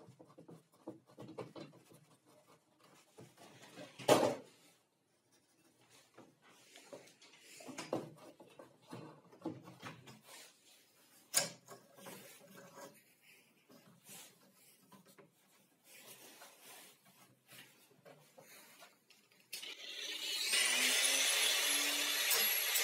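Quiet rubbing and knocking of wooden parts and a steel rule being handled, with a sharp knock about four seconds in and another about eleven seconds in. Near the end an angle grinder is switched on: its whine rises as the motor spins up, then runs steadily and loud.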